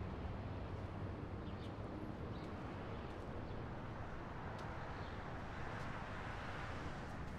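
Parking-lot ambience: a steady wash of distant traffic, with a low engine hum dying away within the first second and a few faint high chirps. The wash swells slightly near the end.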